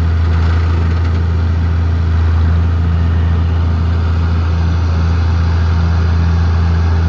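A machine's engine idling steadily, a constant low running hum with a slight even pulse.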